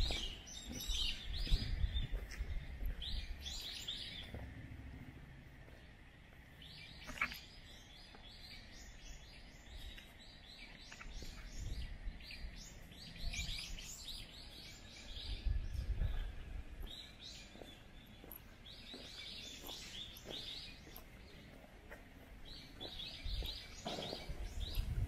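Small birds chirping in repeated clusters of short, high calls, with low rumbles now and then and one sharp click about seven seconds in.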